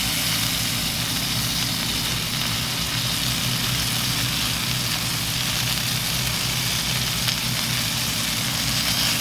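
Pieces of elk filet mignon sizzling steadily in a skillet over a propane camp stove, with a steady low engine hum underneath. They are being seared further because they came out too rare inside. One light tap is heard about seven seconds in.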